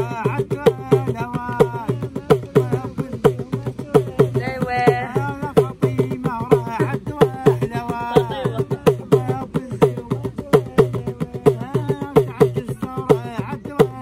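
A man singing a folk song while beating a small hand drum in a quick, steady rhythm.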